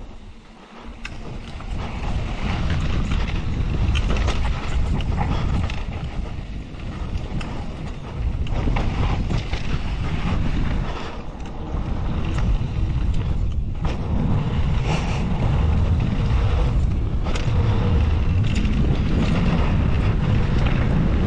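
Wind buffeting a GoPro Hero 11 Mini's microphone at riding speed, mixed with the rolling tyres and clicking rattle of a Pivot Phoenix 29 downhill mountain bike on hardpacked dirt trail. The rush drops away briefly about a second in and dips a few more times later.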